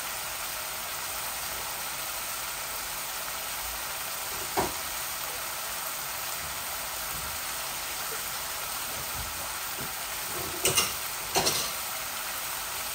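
Onion, green-chilli and spice masala sizzling steadily in oil in a non-stick wok. A few short knocks come through it, once about four and a half seconds in and twice near the end.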